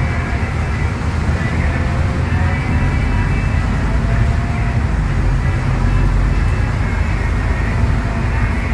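Cabin of a Scania K250UB midibus on the move: the rear-mounted Scania DC09 five-cylinder diesel runs with a steady low drone under road noise.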